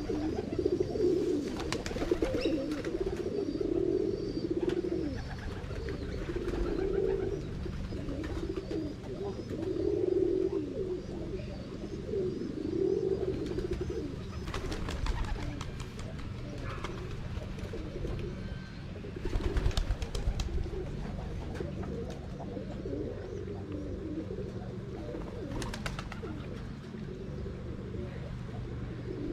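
A flock of pigeons cooing, low rolling coos overlapping one another without pause. A few brief sharp noises stand out, the loudest cluster about two-thirds of the way through.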